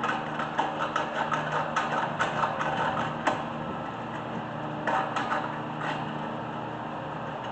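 Irregular metallic clicks and light knocks of hand tools working on front brake caliper hardware, busiest in the first few seconds and again briefly after the middle, over the steady hum of an electric fan.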